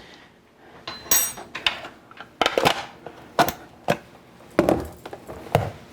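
Kitchen utensils and containers being handled: a string of about nine short, sharp clicks and knocks, like a spoon and plastic containers tapping and being set down.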